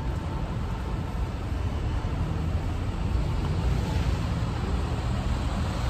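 Street traffic noise: a steady low rumble of vehicles on a city street, with no distinct events.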